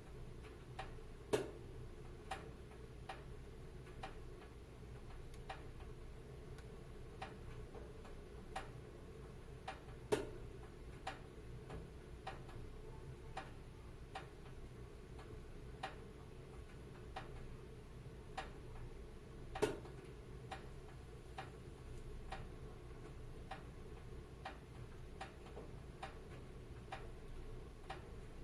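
Wood fire crackling in a fireplace: small sharp cracks about once a second over a low, steady rush of flame, with a louder pop three times.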